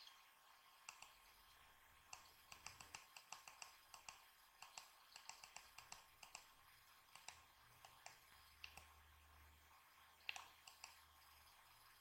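Faint computer mouse clicks in quick, irregular runs of several clicks a second.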